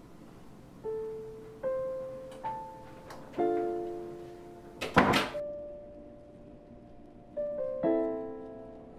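Slow, sparse piano music, single notes ringing out and fading one after another. About five seconds in, a loud double thump cuts across it, a door shutting.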